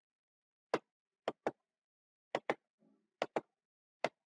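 Computer mouse clicking: about eight short, sharp clicks, several in quick pairs.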